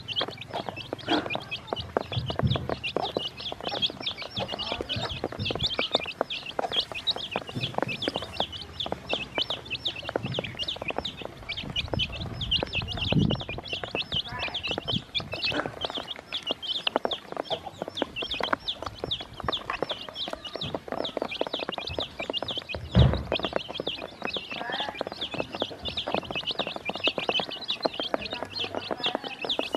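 A group of day-old chicks peeping continuously, many high overlapping peeps at once. A few low thumps come through, the loudest about three-quarters of the way in.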